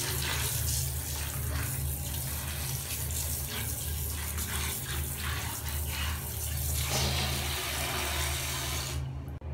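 A stream of running water pouring and splashing steadily onto plastic toy animals in a plastic basket. It cuts off suddenly near the end.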